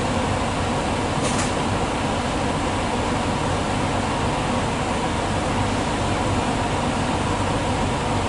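Steady cabin noise inside an NS ICMm (Koploper) electric intercity train: a constant rumble and hum with an even hiss over it. A brief high rustle sounds about a second in.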